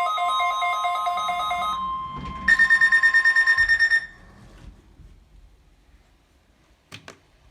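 Electronic alert tones for a required weekly Emergency Alert System test: a warbling pattern of several beeping tones, then after a short gap a higher tone beeping rapidly for about a second and a half, over a faint steady tone. The alert stops about four seconds in, leaving near quiet with a single click near the end.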